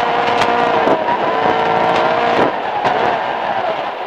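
Toyota Starlet EP71 rally car's 1.3-litre four-cylinder engine heard from inside the cabin, holding a steady high note that drops away about two and a half seconds in. Gravel rattles against the underside throughout.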